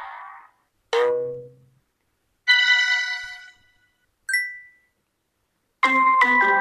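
UMX phone notification tones played one after another, with silence between them: a short sharp blip about a second in, a bell-like chime of several tones soon after, a brief ding a little later, and a multi-note melodic chime starting near the end.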